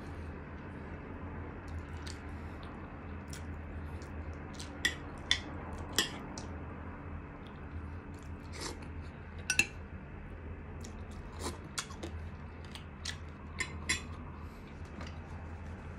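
Close-up eating sounds of a person eating chicken: chewing with scattered sharp clicks and smacks, over a steady low hum.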